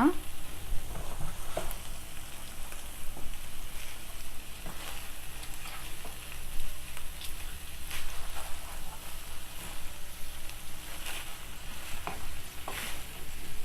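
Chicken pieces in spiced onion-tomato masala sizzling in a pan while being stirred, with a spoon scraping and knocking against the pan now and then.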